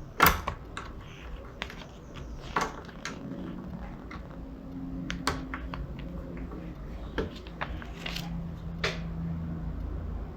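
Plastic LEGO bricks clicking and clacking as pieces are handled and pressed together: a sharp clack just after the start is the loudest, followed by scattered lighter clicks over a low background hum.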